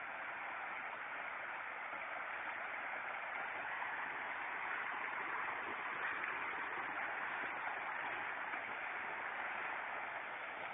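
Steady rushing of floodwater, an even wash of noise without breaks.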